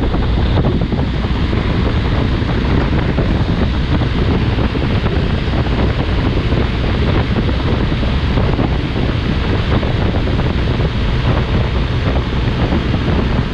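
Steady wind rushing over the camera's microphone on a BMW R 1250 GS motorcycle at about 105 km/h, with the low drone of the bike's boxer-twin engine and tyre noise underneath.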